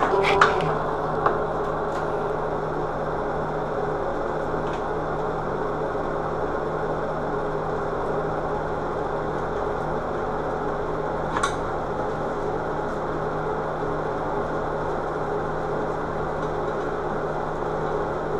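A steady mechanical hum, with a few sharp clicks near the start and one more about eleven seconds in, from hands working a metal vanity light bar as it is mounted.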